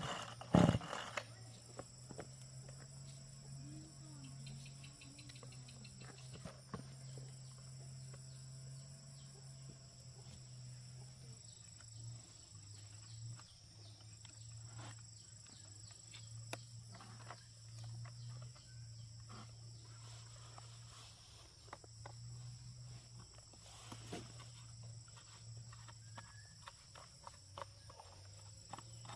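Faint, steady high-pitched insect chirring over a low steady hum, with scattered faint clicks.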